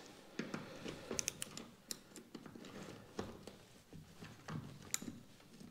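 Faint metallic clicks and clinks of hand tools: a 9/16 socket taken from a socket set and fitted onto a ratchet, which is then set onto a windscreen-clip bolt, with a sharper click about five seconds in.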